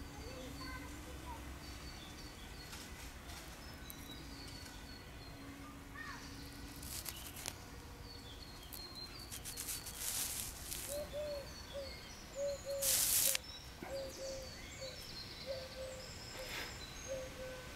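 Outdoor ambience with small birds chirping and singing throughout. A run of short repeated lower calls starts about eleven seconds in, and a brief burst of noise comes about thirteen seconds in.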